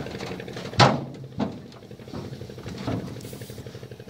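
Hollow wooden knocks and thumps from the boat's wooden engine-hatch boards being lifted and set down, the loudest about a second in and two lighter ones after, over a steady low hum.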